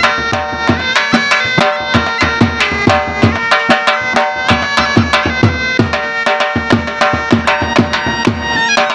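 Shehnai, a double-reed oboe-like pipe, playing a sustained, nasal melody over quick, steady drum beats.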